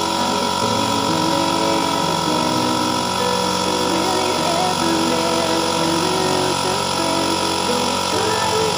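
Electric air compressor running steadily, building up tank pressure.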